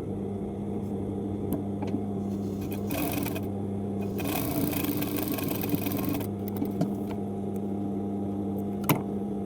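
A low steady hum with fabric rustling, once briefly about three seconds in and again for about two seconds from four seconds in, and a few light clicks.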